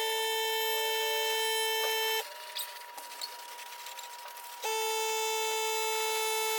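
A steady, high-pitched whine: one held tone that stops about two seconds in and starts again about two and a half seconds later.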